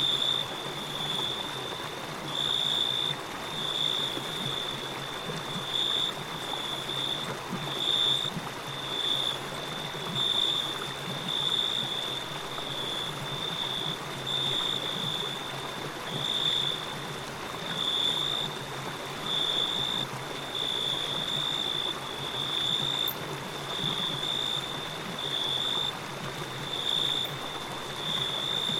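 Nature ambience: a steady, stream-like watery hiss under a high-pitched chirping that repeats at an even pace of about once a second.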